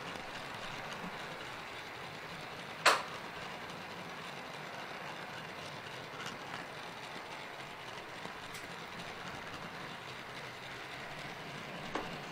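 Model train running along its track with the camera on board: a steady rolling rumble of wheels and motor, with one sharp click about three seconds in and a fainter one near the end.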